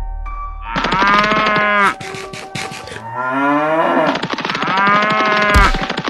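A cow mooing twice, a call of about a second and then a longer one that starts low and rises, over background music.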